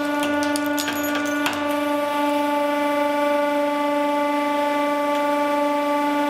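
Hydraulic press running with a steady pitched hum while its ram crushes a stack of hard drives. A few sharp cracks of breaking drive parts come in the first second and a half, then only the steady hum remains.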